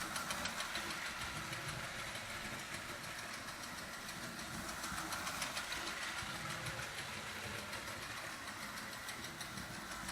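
Marx O27 toy steam locomotive running steadily around its track: a steady electric-motor and wheel noise with a fast, even ticking from its built-in chug-chug sound unit.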